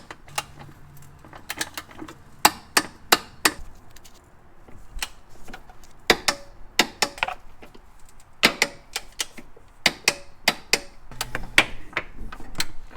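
Socket ratchet and click-type torque wrench clicking in irregular runs of sharp clicks as the transmission crossmember bolts are tightened to 25 foot-pounds.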